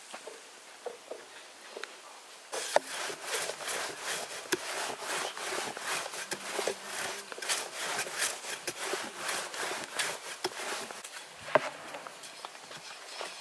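Long, thin wooden rolling pin rolling dough out on a floured wooden board. A quick run of rubbing strokes with light wooden knocks sets in suddenly a few seconds in and thins out near the end.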